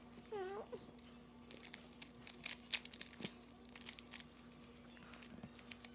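Plastic Windmill Cube puzzle being turned by hand: irregular quick clicks and clacks of its layers snapping round.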